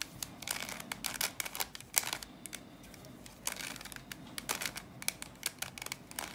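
Bermuda Uranus puzzle cube turned by hand: quick runs of plastic clicks and clacks as its faces turn and snap into place, with a brief pause about halfway through.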